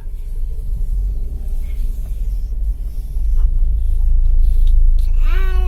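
Low, steady rumble of a car moving slowly, heard inside the cabin: engine and road noise. A child's voice starts singing near the end.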